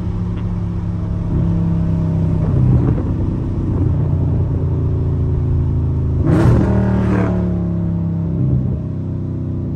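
Catless Dodge Charger Scat Pack's 392 HEMI V8 exhaust at low revs as the car slows, its note shifting in pitch a few times as it steps down through the gears. A short louder burst comes about six and a half seconds in, with wind through the open window underneath.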